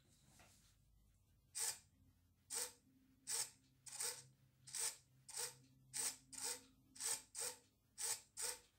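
Small electric drive motor and gears of an RC car whirring in about a dozen short bursts, the raised wheels spinning up and stopping again each time, starting about a second and a half in.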